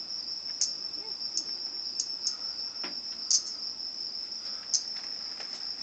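Steady, high-pitched drone of calling insects, with short louder chirps standing out above it several times.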